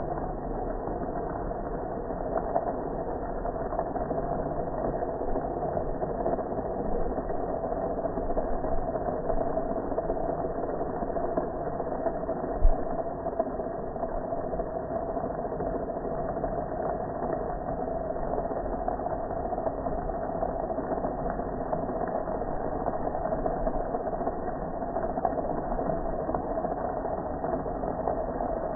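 Pressure washer running steadily while its spray hits a gas grill, with one sharp knock about halfway through.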